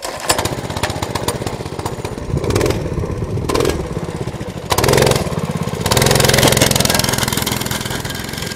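Minibike's small single-cylinder pull-start utility engine running, revved hard several times, then held at high revs as the bike pulls away.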